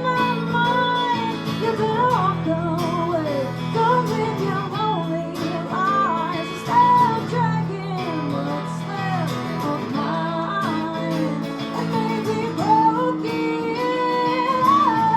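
Music: a passage of a song without words, with acoustic guitar accompaniment under a lead melody that glides between notes.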